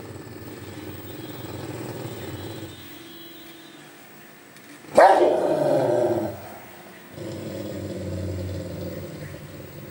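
Rottweiler growling low while lying over a shoe, a warning growl. About five seconds in it lets out a sudden loud bark that falls in pitch over about a second, then goes back to growling.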